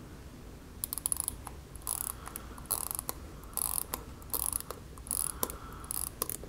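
Seagull ST3600 hand-wound watch movement being wound by its crown: the click and ratchet wheel give bursts of fine ratchet clicks, a burst about every 0.8 s with each turn of the crown, starting about a second in.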